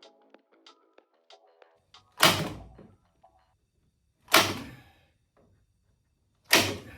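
Background music that stops about two seconds in, then three loud knocks about two seconds apart, each with a short fading ring.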